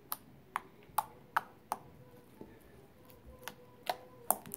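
Light blue slime being poked and squeezed with a finger, giving sharp little clicks and pops as trapped air bursts: about five in the first two seconds, a pause, then a few more near the end.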